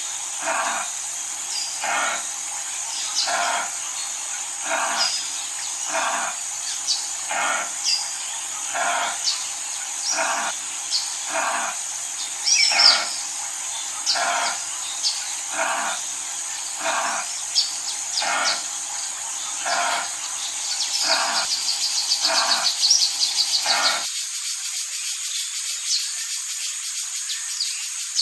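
Outdoor nature ambience: a steady high-pitched insect chorus with scattered bird chirps. Over it, a pulsing sound repeats about once a second and stops a few seconds before the end.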